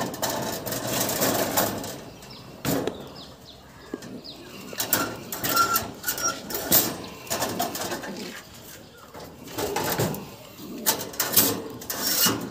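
Sirazi (Lahore) pigeons cooing in a wire-mesh cage, among scattered sharp knocks and rattles.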